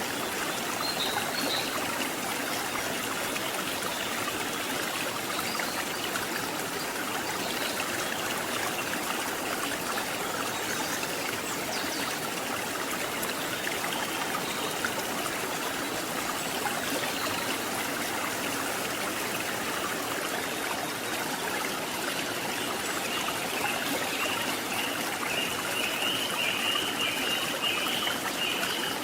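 Stream water flowing and trickling steadily over rocks. Over the last few seconds a rapid, pulsed, high-pitched call joins in.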